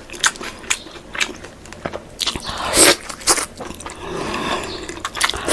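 Close-miked chewing and biting of pork: many short crunching, crackling clicks with a louder crunch about three seconds in.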